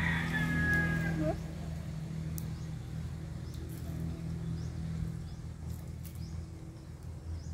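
Outdoor rural ambience: a steady low hum under scattered faint bird chirps, with a brief call in the first second or so.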